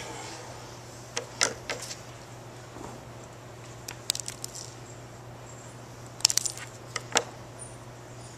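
Scattered sharp clicks and snips, single and in small clusters, of cutters trimming the ends of an Ethernet cable's twisted-pair wires evenly, over a steady low hum.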